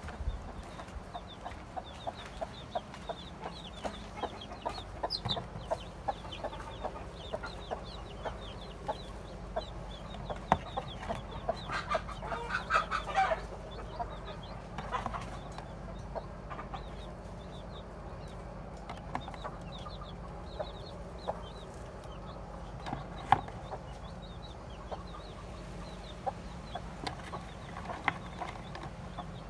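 Domestic chickens clucking, with a louder run of calls about twelve seconds in, over scattered light knocks and clicks.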